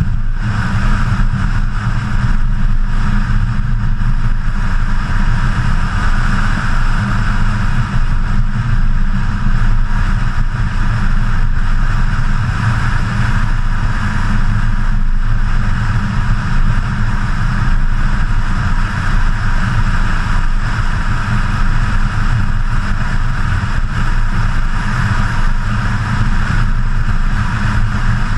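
BMW E92 M3 driving at a steady speed on a mountain highway: a constant low drone with wind and road rush, picked up by a camera mounted on the hood.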